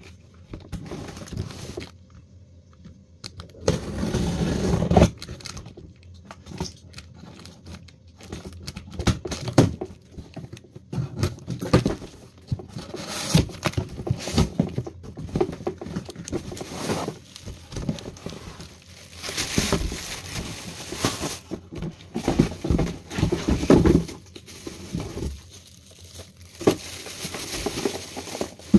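Cardboard carton and plastic wrapping being handled as a stand fan is unboxed: flaps scraping and bumping, with the plastic bag around the fan parts crinkling. Irregular rustles and knocks, with a louder stretch of handling about four seconds in.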